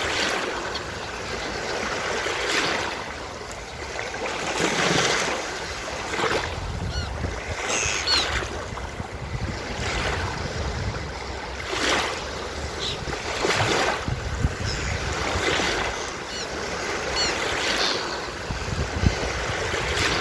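Ocean surf breaking and washing up a beach, swelling every couple of seconds, with a few faint short seagull calls now and then.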